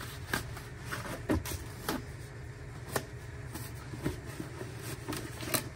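Paper towels being torn from a roll and handled for wiping: a few short rustles and light knocks, about one a second, over a steady low hum.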